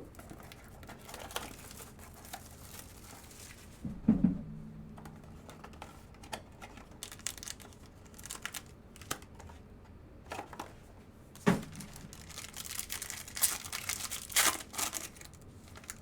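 Trading card packs being opened by hand: wrappers crinkling and tearing, with cards clicking and sliding. There are two louder knocks, about four seconds in and about eleven seconds in.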